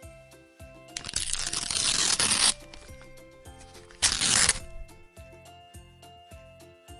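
Background music with two bursts of rough, rasping noise over it: a longer one that grows louder for about a second and a half and stops abruptly, then a short one about a second and a half later.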